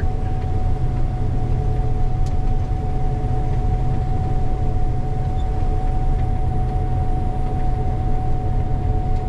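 Gleaner combine running steadily under load while unloading soybeans into a grain cart: a constant low engine rumble with a steady high whine over it.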